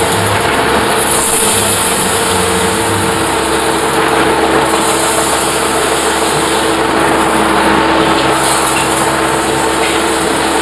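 Large metal-spinning lathe running with a steady hum while a hand-levered tool is pressed against a big spinning metal blank, forming it; a high hiss swells every few seconds.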